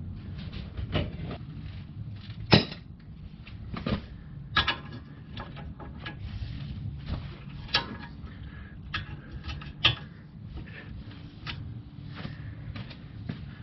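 Metal clinks and clanks of hand tools as a breaker bar and socket are fitted to the brake caliper bracket bolts and pulled to break them loose. Several sharp knocks are spread through, the loudest a few seconds in.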